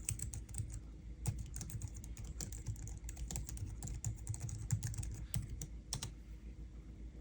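Logitech MX Keys low-profile scissor-switch keyboard being typed on at a quick, irregular pace, soft key clicks and thuds that stop about a second before the end.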